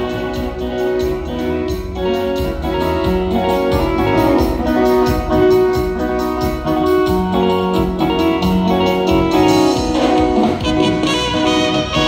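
Live dance band playing an instrumental passage: horns hold melody notes over a steady drum beat, with no singing.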